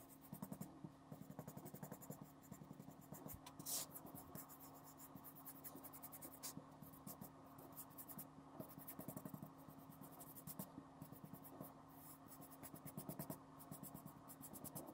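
Flat paintbrush scrubbing acrylic paint onto insulation foam: faint, scratchy brush strokes in quick succession, over a steady low hum.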